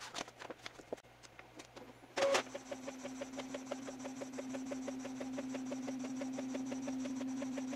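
Epson L3110 ink-tank printer making a colour copy. After a few light clicks, the mechanism starts suddenly about two seconds in and runs with a steady hum and rapid, even ticking.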